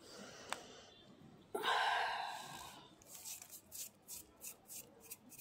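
A hand squeezing and crunching kerosene-damp naphthalene powder in a bowl, with short crisp crunches about three times a second in the second half. The loudest sound is a single breathy exhale about a second and a half in, fading over about a second.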